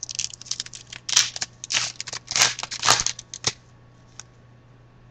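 Hockey card pack wrapper being torn open and crinkled by hand: a quick run of crackling, rustling tears that stops about three and a half seconds in.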